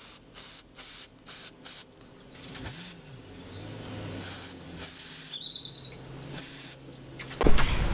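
Aerosol can of mass airflow sensor cleaner hissing in short spray bursts, several a second at first, then a few longer squirts, as it is sprayed over a hot-wire MAF sensor to clean it. Birds chirp in the background.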